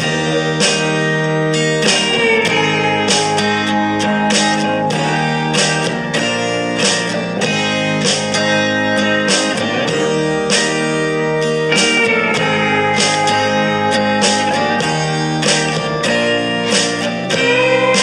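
Background music led by plucked guitar, with a steady rhythm of picked notes and a few notes that slide in pitch.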